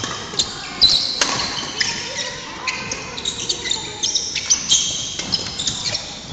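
Court shoes squeaking repeatedly on a wooden sports-hall floor during badminton play, with two sharp racket-on-shuttlecock hits about a second in, echoing in the large hall.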